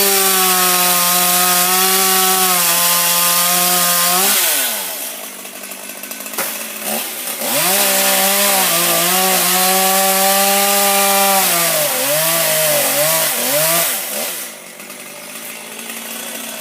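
Gas chainsaw cutting at full throttle, dropping back to idle about four seconds in. It revs up again a few seconds later, its pitch wavers and dips under load near the end, then it settles back to idle.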